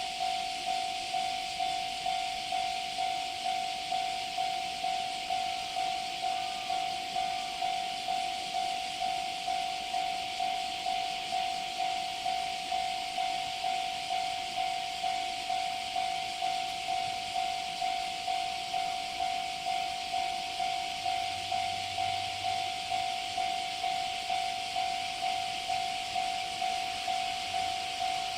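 Japanese level crossing warning bell ringing: one electronic tone struck over and over in an even rhythm, over a steady high-pitched hiss.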